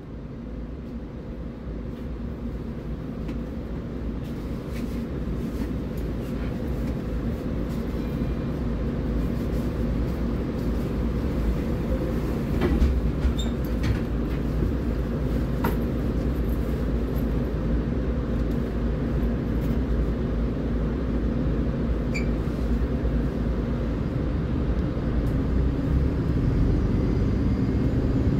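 MAN Lion's City Ü (A20) city bus's diesel engine running with a steady drone, growing louder over the first several seconds. A few light clicks and rattles about halfway through.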